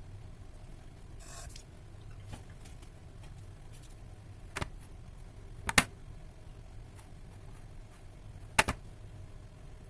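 Hands kneading sticky pizza dough on a plastic tray: three sharp knocks against the tray, the loudest about six seconds in, and a brief rustle about a second in, over a low steady hum.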